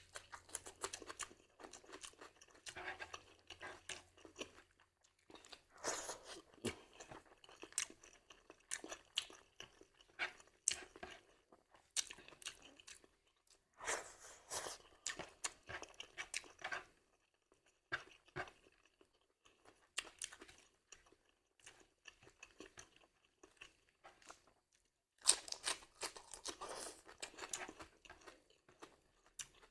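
A person chewing crunchy food close to the microphone: wet, crisp crunches in runs of several seconds separated by short pauses, the loudest run near the end.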